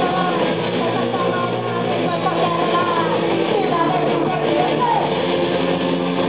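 Live rock band playing loud, with electric guitar and drums and a voice singing over them.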